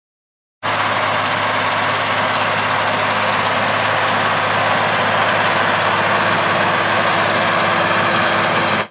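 Claas Arion 610 tractor engine running steadily with a deep hum, starting abruptly just under a second in and cutting off sharply at the end.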